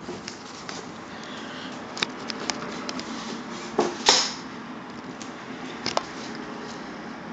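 Steady hiss of rain during a thunderstorm, broken by several sharp taps, the loudest pair about four seconds in.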